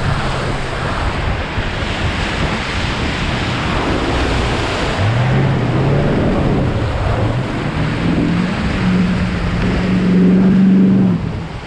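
Hummer H1 ploughing through deep muddy water, with water surging and splashing around it. From about five seconds in, its engine revs climb under load, loudest just before the end.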